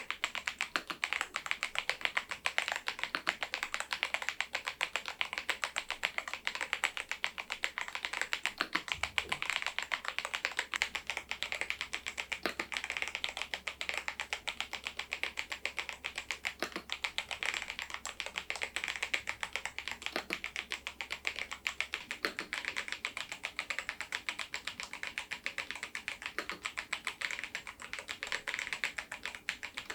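Continuous typing on a Machenike K500 PRO mechanical keyboard with its stock switches and keycaps: a steady, dense run of keystroke clacks.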